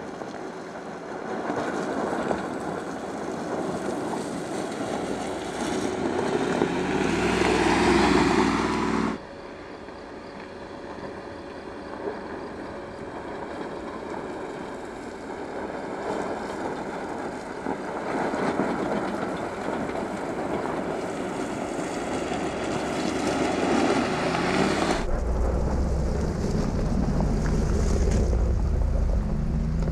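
Mercedes-Benz G-Class off-roader driving on a steep gravel slope: engine running with tyre noise on the loose surface. The sound builds to its loudest about eight seconds in and cuts off abruptly, then runs on steadily, and a heavier deep rumble comes in near the end.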